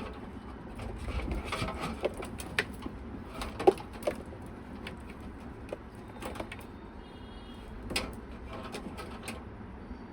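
Scattered small clicks and light knocks of hands handling PC parts and cables in a computer case, with one sharper click about three and a half seconds in.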